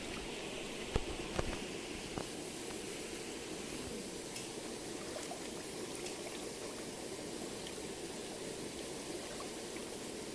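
A shallow stream running steadily over stones, with hands swishing rice in water in a metal pot. A few light knocks come in the first two seconds.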